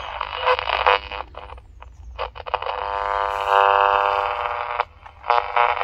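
Mikki 2 pocket transistor radio's small speaker hissing and crackling as its medium wave band is tuned, then a steady pitched tone about two and a half seconds in that cuts off suddenly near the end.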